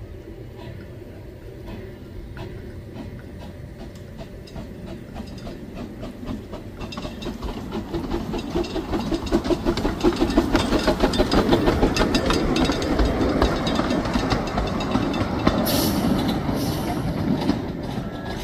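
Miniature steam locomotive Bonnie Dundee chuffing in a quick, even beat as it draws near, passes close by and pulls away, its wheels clicking over the rail joints; it grows louder toward the middle and fades near the end. A brief hiss of steam is heard shortly before the end.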